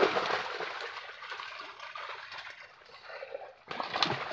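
Water splashing and trickling as a netful of carp thrashes in a seine net drawn together in shallow pond water, quieter in the middle, with a sudden louder burst of splashing near the end.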